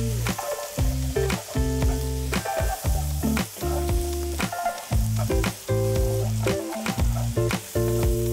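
Diced onion, carrot and celery sizzling as they fry in a cast-iron pot, stirred and scraped with a wooden spatula. Background music with a bass line plays alongside.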